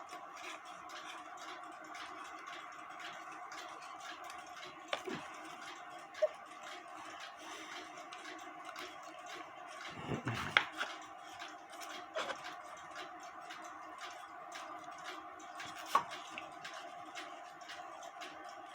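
Faint handling noises of a knife trimming excess paper from a cuckoo clock bellows: a few light clicks and scrapes, scattered over a steady low hum.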